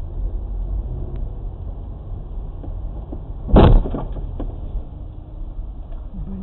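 Steady low road and engine rumble inside a moving car, picked up by a dashcam, with one loud, short thump about three and a half seconds in.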